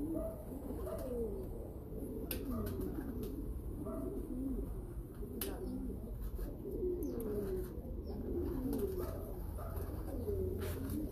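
Many pigeons cooing at once, low overlapping coos running on without a break, with a few sharp clicks now and then.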